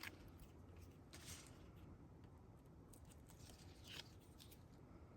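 Faint paper rustling as release liners are peeled off double-sided tape on a card layer, with a soft rustle about a second in and another near four seconds in.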